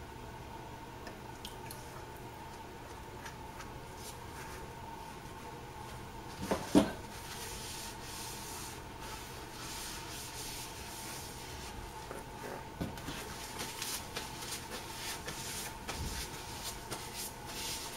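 Plastic mixing bowls and measuring pitchers being handled on a table: one sharp knock with a short ring about seven seconds in as a container is set down, then light rubbing and clicking of handling from about twelve seconds on, over a faint steady hum.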